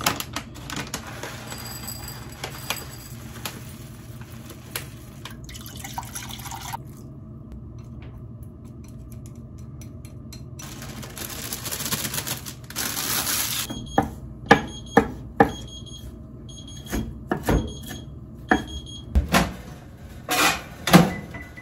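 Rolled oats poured from a plastic bag into a ceramic bowl and liquid poured in over them, then chopsticks clicking against the bowl as the oatmeal is stirred. Near the end come a few knocks and a microwave door being opened.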